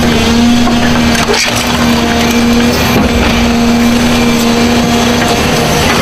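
Doosan tracked demolition excavator with a car-dismantling grab working under load: its engine and hydraulics run loud with a steady whine, and metal crunches and scrapes as the grab tears into a scrapped car, with a knock about a second and a half in.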